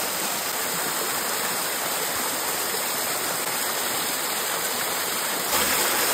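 Waterfall: steady rushing water, a little louder in the last half-second.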